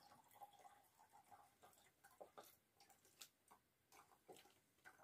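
Near silence, with faint scattered soft clicks of eating by hand: fingers working rice and cauliflower curry on a steel plate, and mouth sounds.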